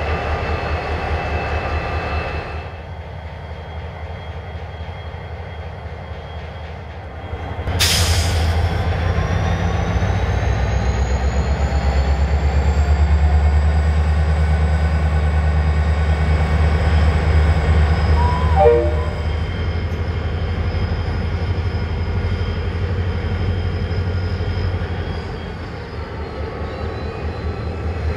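Diesel-electric freight locomotives running past with a low pulsing engine rumble. About eight seconds in there is a sharp click and the rumble grows louder, while a high whine rises in pitch over several seconds and then holds. A short falling chirp is heard about eighteen seconds in.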